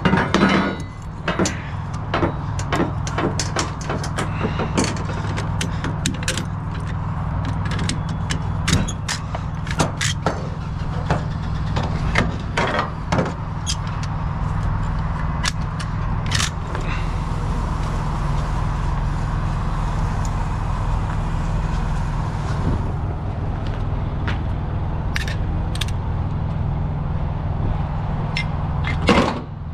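A ratchet strap being worked on a flatbed trailer: a long series of sharp clicks and metallic clanks, thickest over the first half and again near the end, over the steady hum of an idling truck engine.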